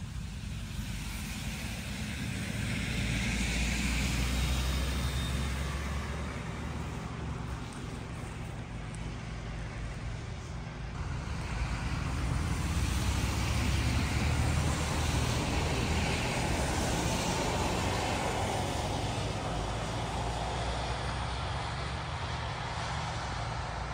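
Road traffic passing on a wet road, with a steady low rumble and two swells as vehicles go by, one about four seconds in and a longer one from about twelve to sixteen seconds in.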